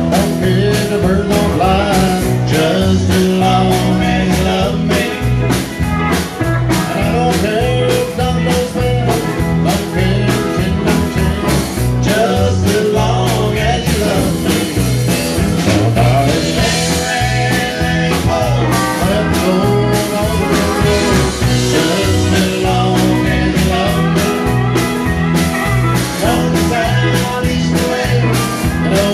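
Live country band playing with a steady drum beat and guitars, and a man singing the lead vocal.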